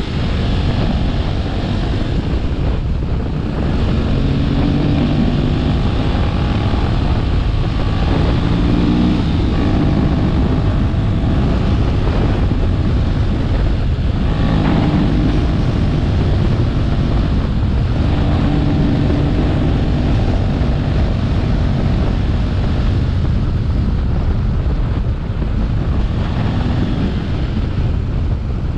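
A vehicle engine running under way, its pitch rising and falling several times, under heavy wind noise on the microphone.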